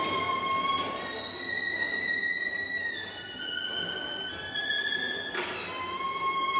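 Solo violin playing slow, long-held high notes. It moves from one note up to a higher one, steps down through two lower notes, and then a sharp new stroke about five seconds in brings back the first pitch.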